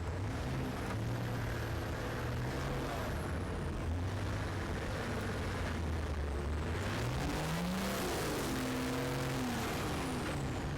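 Modified 4x4 competition truck's engine running at low revs, then revving up sharply about two-thirds of the way through before the revs drop again near the end.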